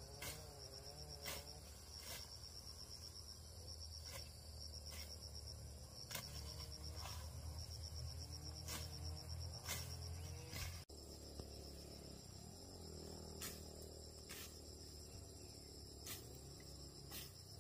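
Insects chirring steadily in a high, finely pulsing buzz, with sharp clicks or snaps every second or so and a low rumble underneath.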